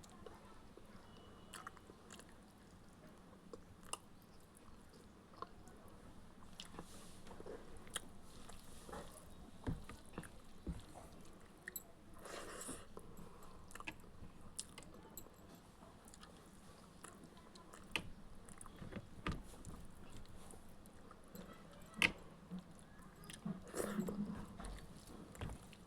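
Close-up chewing and smacking of a mouthful of egg curry and rice, with irregular small clicks and wet mouth sounds.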